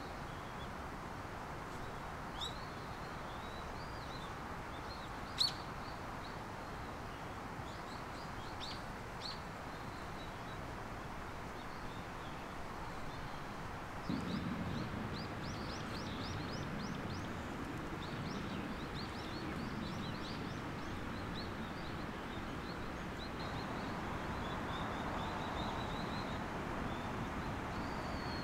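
Small birds chirping, with short high calls scattered throughout and a quick run of rapid notes about halfway through, over a steady outdoor background hiss that grows fuller near the middle.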